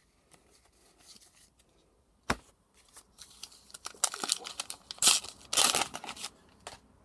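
A single sharp tap about two seconds in, then the foil wrapper of a trading-card booster pack crinkling and tearing open for about three seconds.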